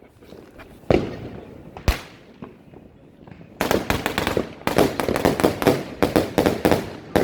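Fireworks going off: two single sharp bangs about a second apart, then from about halfway through a long run of rapid crackling pops in quick clusters.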